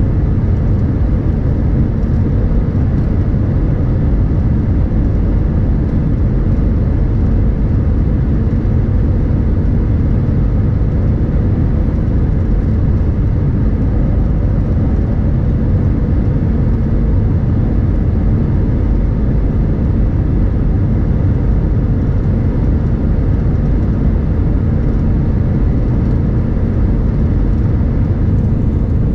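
Steady in-flight cabin noise of an Airbus A320-232 airliner: a constant low rumble of engines and airflow with a faint steady hum, unchanging throughout, as the aircraft prepares to descend.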